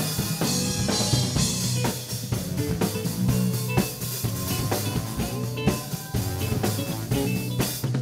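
Live band playing an instrumental groove: a drum kit keeping a steady beat over bass notes, with no vocals.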